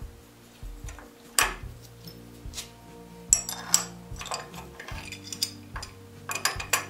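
Iron brake hardware clinking and knocking against itself and the wooden brake beam as it is handled and fitted by hand: a string of irregular sharp clinks, the loudest about a second and a half in, a pair a little past three seconds, and a cluster near the end.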